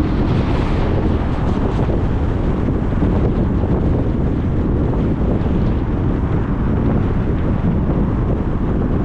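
Steady road and wind noise of a car being driven, a dense low rumble that holds an even level throughout, with a brief hissing swell about half a second in.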